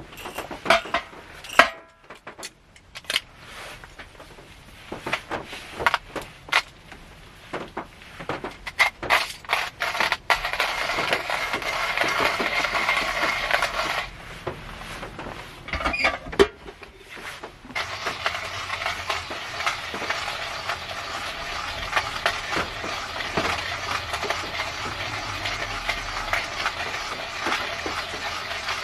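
Rain pattering steadily on the roof of a car, heard from inside the cabin. It drops away for a few seconds in the middle, and the first part is mostly scattered clicks and taps.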